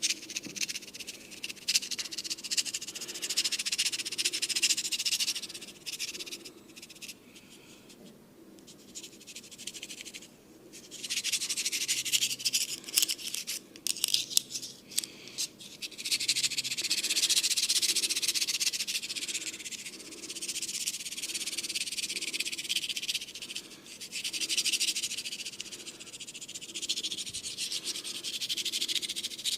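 Close-up rubbing and scratching of a massage on hair and skin, made of rapid fine strokes that come in stretches of several seconds with short pauses between them.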